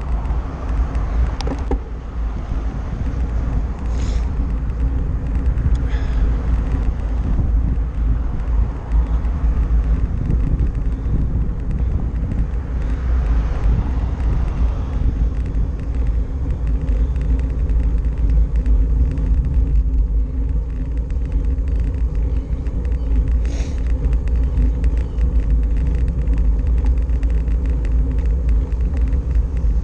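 Steady wind buffeting and road rumble on a bicycle's handlebar-mounted action camera while riding a road bike, with car traffic going by.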